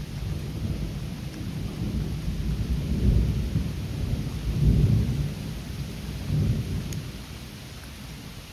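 Thunder from a close lightning strike rumbling in rolling waves, swelling about three and five seconds in and fading out near the end, over steady rain.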